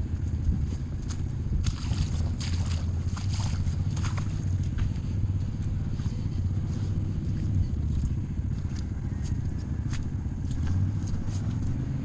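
Off-road vehicle engine running steadily at low speed over a muddy trail. Scattered clicks and scrapes come in clusters from a couple of seconds in.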